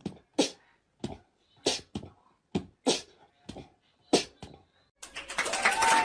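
Corgi giving a string of short, sharp barks, about two a second and unevenly spaced, with silence between them. About five seconds in, the sound cuts to music with voices.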